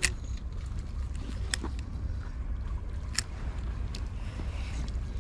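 Steady low rumble of wind and water at a harbour's edge, with three sharp clicks about a second and a half apart.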